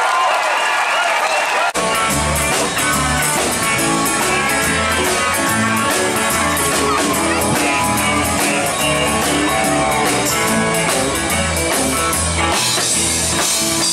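For the first second or two, crowd voices. Then an abrupt cut to a live country-rock band: electric guitars, bass and a drum kit with a steady cymbal beat.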